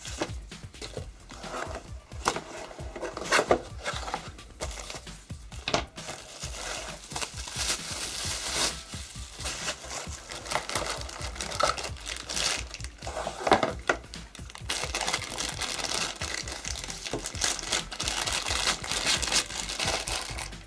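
Crinkling and irregular clicks of something being handled, over background music.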